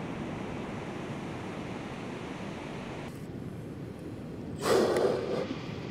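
A steady hiss, then, a little under five seconds in, a loud breath lasting under a second from a nesting leatherback sea turtle.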